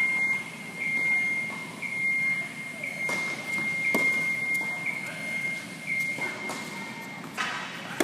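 Tennis racket strikes on the ball in a reverberant indoor tennis hall: a serve hit about four seconds in, preceded by a sharp knock about a second earlier, and a groundstroke hit right at the end, the loudest of them. A steady high-pitched whine runs underneath until about seven seconds in.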